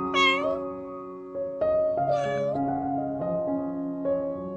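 A cat meowing twice, short meows about two seconds apart, over slow background music.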